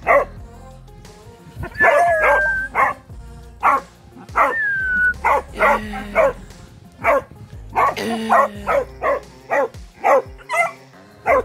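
Hunting dog barking repeatedly into an armadillo burrow, in short, loud barks about one a second, a couple of them stretched into a high, falling whine. This is the dog baying at quarry it has located in the hole, with background music underneath.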